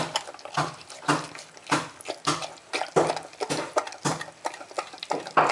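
Mother dog licking her newborn puppy clean: wet slurping licks repeating about twice a second.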